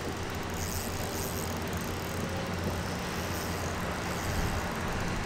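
Steady rumble of road traffic crossing the concrete highway bridge overhead.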